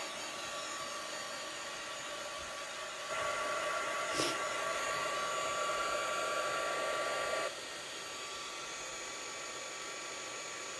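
Handheld hair dryer running steadily with a motor whine, blowing on a wet watercolour painting to dry the paint. It gets louder for about four seconds in the middle, with a single click in that stretch, then drops back to its earlier level.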